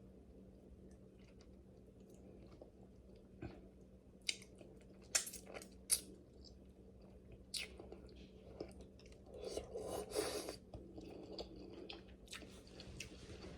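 Close-up eating of king crab legs: chewing with a scattering of sharp cracks and clicks from the shells, busiest about two-thirds of the way in.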